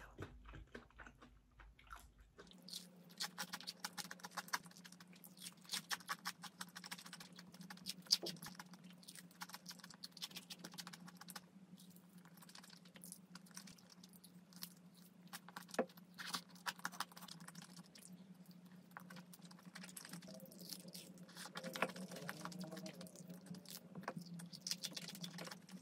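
Close-miked chewing and biting of crispy fried chicken: many small crackling crunches and mouth clicks. A faint steady low hum comes in about two seconds in.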